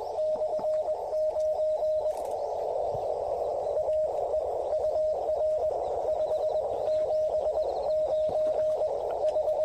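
Morse code (CW) signal heard through a Yaesu FT-817 transceiver's receiver: a single steady beep keyed on and off in dots and dashes over a band of receiver hiss.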